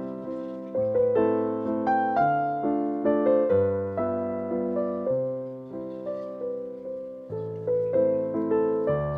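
Background piano music: a gentle melody of struck notes over low bass notes, each note fading away after it sounds.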